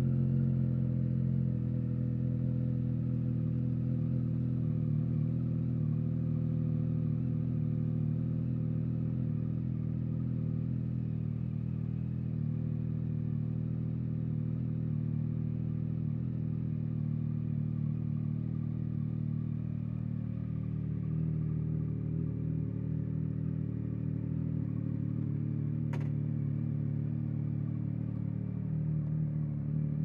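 2023 Yamaha XSR900's three-cylinder engine idling steadily through a Spark aftermarket exhaust, freshly started. A single sharp click comes about 26 seconds in.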